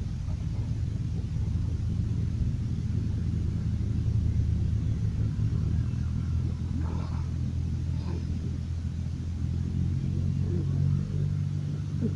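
Steady low rumble of a motor running, even throughout.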